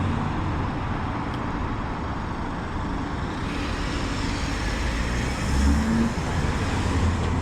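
Street traffic: cars driving past with a steady road rumble, one vehicle's engine growing louder about three-quarters of the way through.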